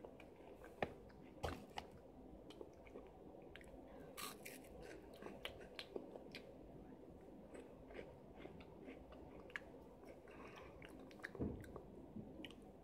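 Faint chewing of crunchy corn-and-potato snack fries: small crunches and clicks scattered irregularly, with a couple of sharper ones in the first two seconds.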